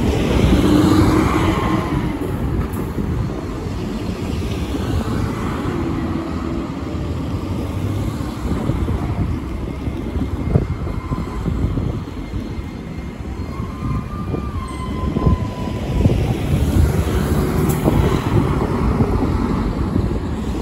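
City street traffic: a bus and a car pass close at the start, then an Iyotetsu city tram rolls along street-running rails, its wheels knocking over track joints and the diamond crossing as it passes.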